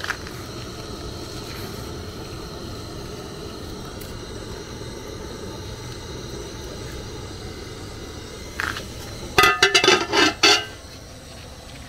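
Aluminium lid set onto a large aluminium cooking pot: a quick run of loud metallic clanks with ringing near the end, after a single lighter knock, over a steady low background noise.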